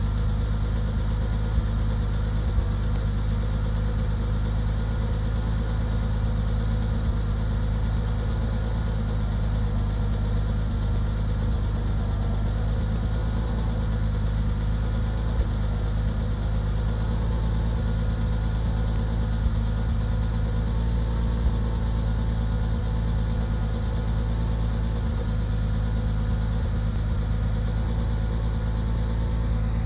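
Porsche Cayman S race car's 3.6-litre flat-six idling steadily, heard at the rear exhaust, with a few brief ticks.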